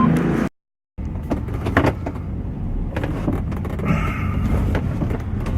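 Vehicle sounds at a standstill: a steady low rumble with scattered clicks and knocks, and a brief high tone about four seconds in. The sound cuts out completely for half a second near the start.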